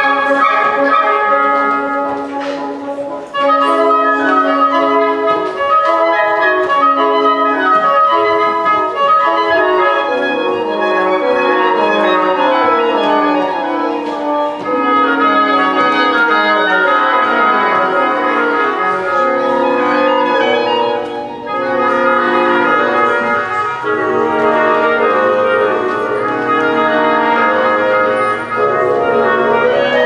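Woodwind quintet (flute, oboe, clarinet, bassoon and French horn) playing live, several wind parts moving together in stepping melodic lines, with brief breaks about three seconds and about twenty-one seconds in.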